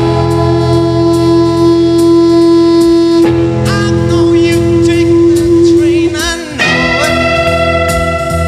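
Blues-rock band music: a long held lead note rich in overtones sustains over a repeating bass-and-drum groove, breaks off with a bending slide about six seconds in, and settles on a new held note.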